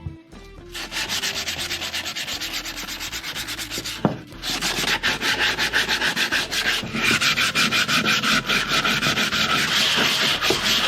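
A dried gourd shell being sanded with rapid, even back-and-forth strokes. The strokes pause briefly about four seconds in, then resume louder.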